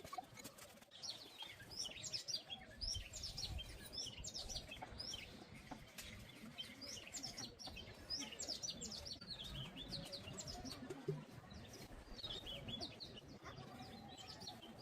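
Small birds chirping: many short, high chirps, each sliding down in pitch, in quick series over a low background rumble.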